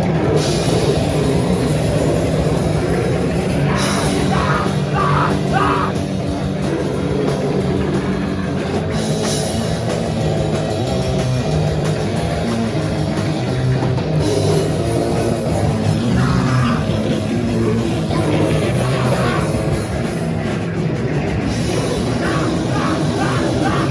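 Live band playing loud, dense, heavy rock music without a break.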